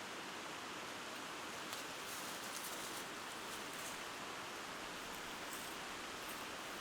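Steady rushing outdoor noise, with faint crackling rustles through the middle.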